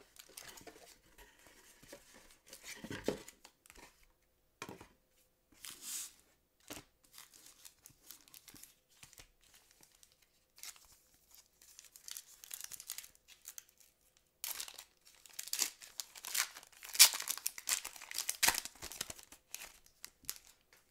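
Foil wrappers of 2006 Fleer Ultra football card packs crinkling as the packs are handled, then a pack torn open in a dense run of crackling in the last several seconds, the loudest part.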